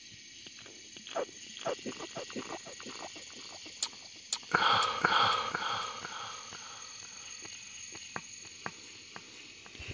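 A steady high-pitched chorus of night insects such as crickets. A string of small knocks comes in the first few seconds, and a louder noisy burst of about a second and a half comes about halfway through.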